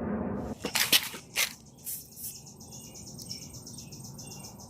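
A few sharp clicks and knocks in the first second and a half, then high-pitched chirping that repeats quickly and evenly.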